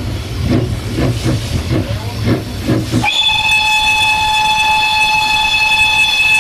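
Narrow-gauge steam locomotive working with a regular chuff, about two to three beats a second. About three seconds in, its steam whistle starts abruptly and is held as one long, steady, multi-tone blast.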